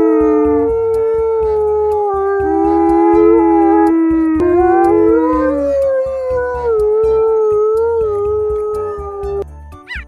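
Several canines howling together in long, overlapping, slowly gliding howls over a backing music track; the howls stop near the end.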